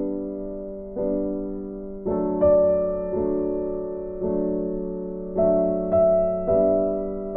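Background music: soft keyboard or electric piano playing slow, gentle chords, each struck and left to fade.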